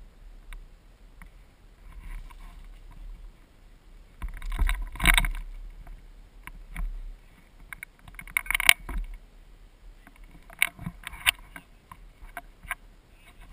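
Airsoft gun firing short bursts of rapid clicks, three bursts spread through the middle and later part, amid an exchange of fire.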